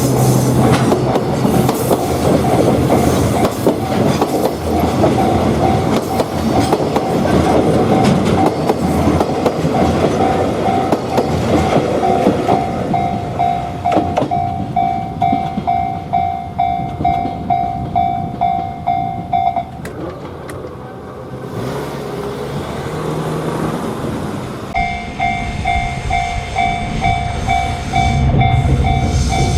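Japanese level-crossing alarm bell ringing its electronic "kan-kan" at about two strikes a second while a train passes with a rumble and wheel clatter. The bell stops about two-thirds of the way through, then starts again a few seconds later.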